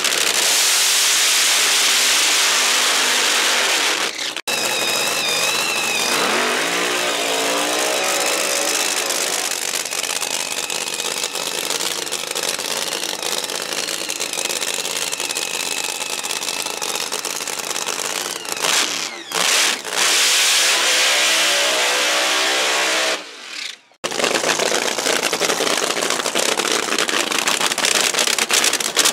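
Fuel altered drag cars' nitromethane-burning V8 engines running very loud, their pitch rising and falling as the throttle is blipped. The sound cuts off abruptly a few times as it switches from car to car.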